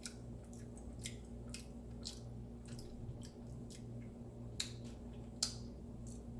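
Close-up chewing of a toasted almond-flour cinnamon raisin bagel: a string of soft mouth clicks and smacks, about two a second, with two sharper ones late on. A steady low hum sits underneath.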